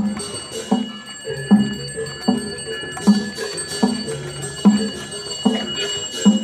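Balinese gamelan metal percussion striking a steady beat, about one ringing stroke every 0.8 s. A continuous high bell-like ringing runs underneath.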